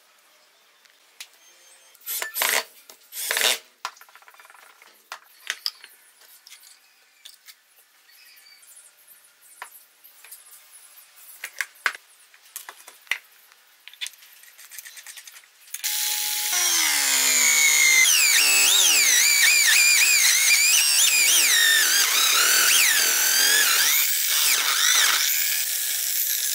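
Electric drill in a homemade drill-press stand boring into wood with a Forstner bit; through the last ten seconds or so the motor whine wavers up and down in pitch as the bit bites and the load changes. Earlier come two short bursts of drilling and light clicks and knocks from handling the wood.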